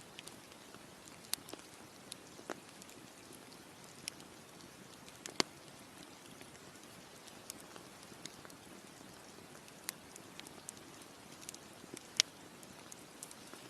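Campfire crackling: irregular sharp pops and snaps of burning wood over a steady soft hiss, the loudest pops about five and twelve seconds in.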